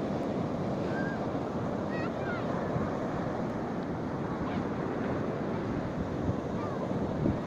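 Sea surf breaking and washing up a sandy beach, a steady rushing noise, with wind on the microphone.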